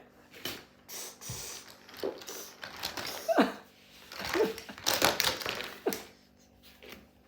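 A child making sound effects with the mouth: an irregular string of hisses, puffs and clicks, with a few short downward-sliding squeaks.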